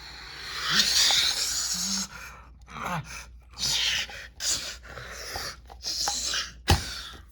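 A person's breathy gasps and grunts, several in a row, with one sharp smack about seven seconds in.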